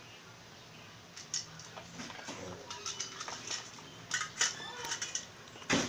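A dog eating from a bowl: irregular clicks and clinks of the bowl and food, with one louder knock near the end.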